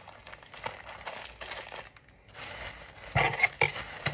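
Plastic packaging crinkling and rustling as a bread bag is handled, with a few louder, sharper rustles about three seconds in as a Weetabix pack is opened.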